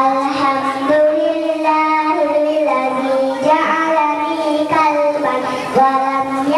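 Young girls singing a melody into handheld microphones, moving from one long held note to the next.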